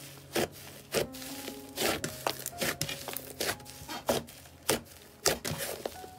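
Thick slime being squeezed and pressed by hand, giving a string of irregular sharp pops and crackles as air pockets burst inside it.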